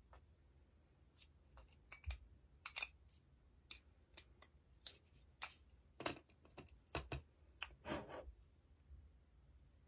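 Small airsoft pistol parts being handled and fitted by hand during assembly of an AAP-01 power brake: a dozen or more irregular light clicks and taps of plastic and metal. The loudest, slightly longer scrapes come about six and eight seconds in.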